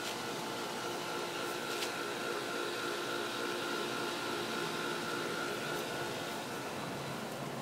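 Steady mechanical hum with a high, even whine that fades out near the end, like an air-conditioning unit or fan running.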